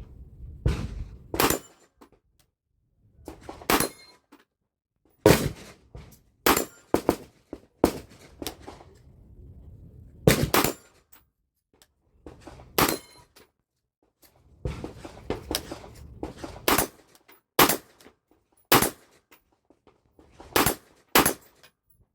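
A dozen or so sharp metallic clicks and clacks at irregular intervals, some in quick pairs, from AR-15 rifle parts being handled and fitted together.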